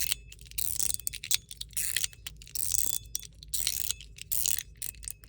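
Machined metal fidget slider being worked back and forth: a run of sharp metallic clacks, roughly one or two a second, each with a light ringing.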